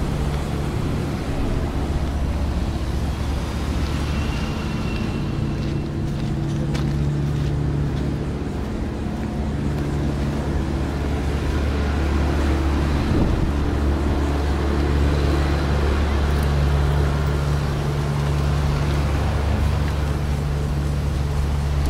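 An engine running steadily with an even low hum, over the noise of road traffic passing.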